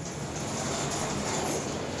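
Elevator car and landing doors sliding open on both sides of the car at once, a steady rolling rattle from the door tracks and door operator.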